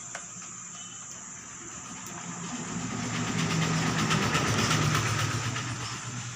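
A passing vehicle: rattling and rumbling that builds from about two seconds in, peaks near five seconds, then fades.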